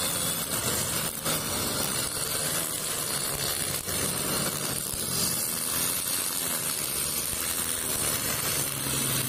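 Honda GX35 four-stroke engine on a brush cutter running steadily under throttle as its 2.2 mm nylon line cuts grass. The engine note grows louder near the end.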